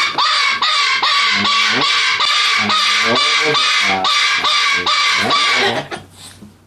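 A cockatoo screaming: a rapid run of loud calls, about three a second, that stops about six seconds in.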